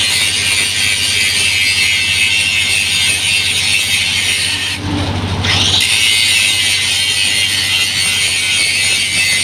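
4-inch angle grinder grinding a bevel on a metal edge: a steady, loud, high grinding hiss over the motor's hum. About halfway through the sound changes for about a second, the hiss dropping away while the motor hum comes up, then the grinding resumes.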